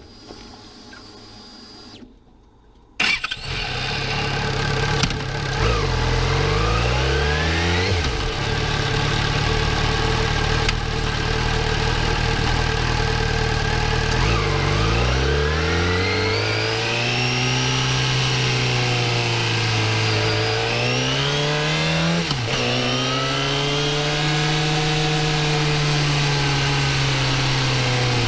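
Yamaha FZ6R's 600cc inline-four engine catching and running about three seconds in, then revving up and dropping sharply in pitch several times as the bike accelerates through the gears, with a steadier run near the end.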